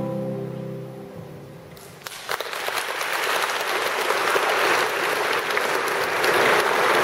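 Final chord of a classical guitar duet ringing out and fading away, then, a little over two seconds in, an audience applauding.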